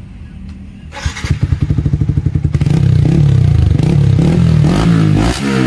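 Yamaha R15 V3's 155 cc single-cylinder engine running through a newly fitted Akrapovic silencer with bend pipe and DB killer. About a second in the exhaust note comes in with a fast pulsing beat, then runs steadily and loud, with short throttle blips near the end.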